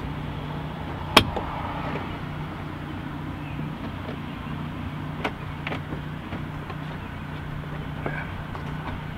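Screwdriver clicking against the sliding-door inner handle and its retaining clip while prying the clip off: one sharp click about a second in, then a few faint ticks, over a steady low hum.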